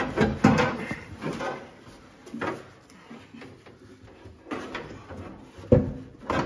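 Metal fuel tank of a VW bus knocking and scraping against the body as it is worked loose by hand: several sharp, irregular clunks with scraping between them.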